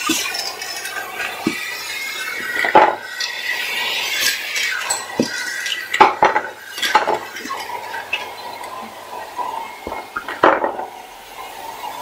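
Canister vacuum cleaner running with a steady whine, broken by several sharp metallic clinks and clatters of loose batteries and the metal wand.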